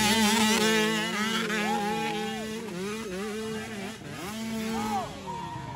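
Off-road dirt bike engines revving up and down as they pull through deep ruts, the pitch rising and falling with each throttle blip. More than one engine is heard at once. The sound eases after the first second and swells again around four to five seconds in.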